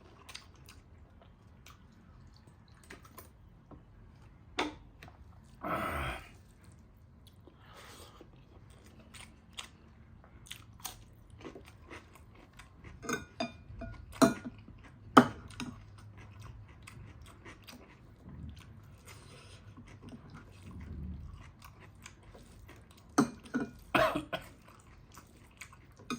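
Close-up eating sounds: chewing and crunching of food with scattered sharp mouth clicks, the loudest about fifteen seconds in, and a brief louder noisy sound about six seconds in.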